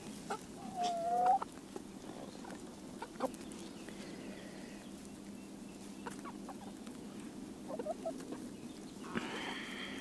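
A flock of hens clucking quietly as they forage, with one short drawn-out call about a second in and scattered soft calls and clicks after it.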